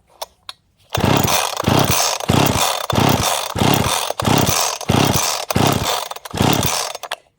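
Poulan Pro two-stroke chainsaw of about 51 cc with a modified muffler, loud and surging unevenly about twice a second after a few handling clicks; it stops abruptly near the end. The rough running is put down to old fuel after long storage.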